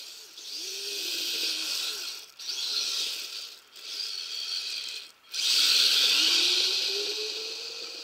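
Kyosho Blizzard RC snowcat's electric motor and gearbox whining over the clatter of its tracks on snow, the pitch rising and falling with the throttle. It drops out briefly three times, then runs loudest from about five seconds in and fades as the snowcat drives away.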